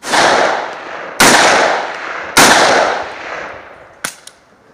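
Three rifle shots from an AR-15-style rifle, about 1.2 seconds apart, each echoing away over a second or so. Two light clicks follow near the end.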